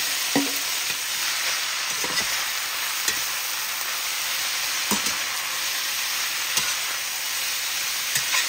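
Boiled, shredded pork sizzling steadily as it fries in hot oil in a stainless-steel pan. A metal spatula stirring it clicks and scrapes against the pan every second or two.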